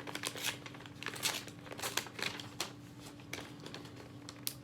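Paper slip being folded and crinkled by hand: a run of short, irregular rustles and crinkles.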